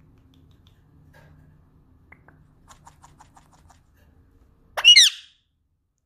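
Indian ringneck parakeet giving one short, loud squawk about five seconds in, sweeping up and down in pitch. Before it comes a stretch of faint, quick clicking.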